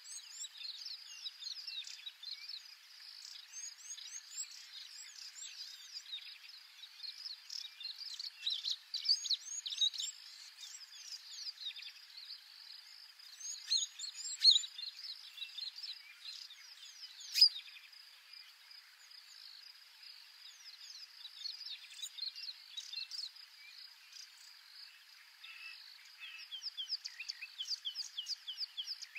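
Outdoor bush ambience of many small birds chirping over a steady insect buzz, with a few louder single chirps along the way.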